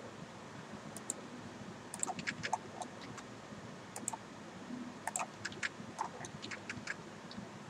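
Scattered, irregular clicks of a computer mouse and keyboard while drafting in CAD software, some in quick little runs, over faint background hiss.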